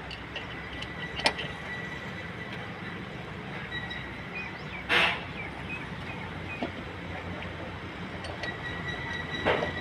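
Hand-tool and metal handling noises from work deep in a car's engine bay: a sharp click about a second in and a short, louder rush of noise about halfway, with smaller clinks, over a steady low hum.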